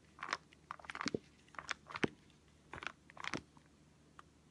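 Plastic Kiinde Foodii filler squeeze bottle and plastic storage pouch crinkling and crackling as the bottle is squeezed to push yogurt into the pouch, in a series of short, irregular crackles.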